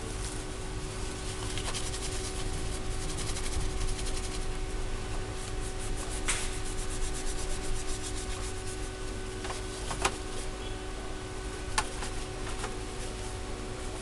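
Tissue rubbed and wiped over the dusty metal chassis of a PS4, a scratchy rubbing in quick strokes, with a few sharp clicks. A steady hum runs underneath.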